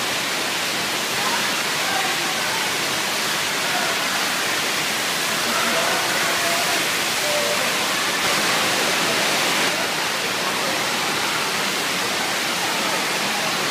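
FlowRider surf simulator's sheet wave: a steady rush of pumped water pouring over the padded ramp, a constant hiss.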